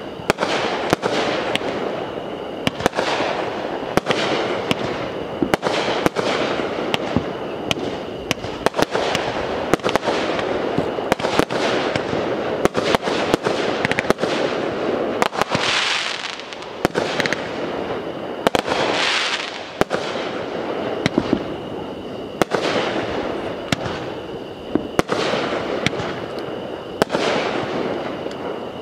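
Aerial fireworks going off in a steady barrage: dozens of sharp bangs, at times several a second, over a continuous noisy wash. A hissing rush swells up twice around the middle.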